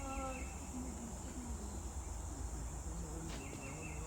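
Steady high-pitched insect drone, like cicadas or crickets, with a few short faint pitched calls near the start and again near the end.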